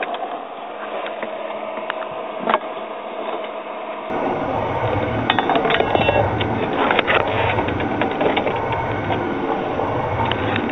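Light clicks and knocks of hands and tools working among metal and plastic heater parts, with one sharp knock about two and a half seconds in. About four seconds in it changes to louder, rougher rattling with a low pulsing rumble.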